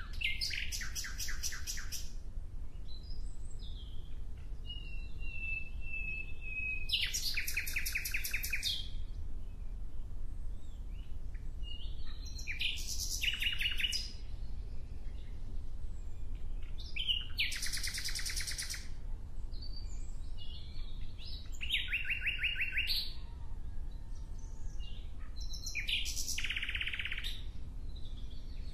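A songbird singing short, rapid trilled phrases, six of them, each about a second and a half long and repeated every four to five seconds, with a thin, slightly falling whistle between the first two.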